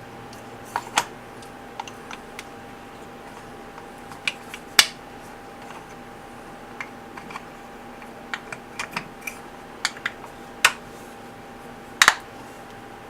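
Irregular light clicks and knocks of wooden revolver grip panels being handled and pressed onto the metal frame and its pins, with a few sharper knocks about five seconds in and near the end. A faint steady hum runs underneath.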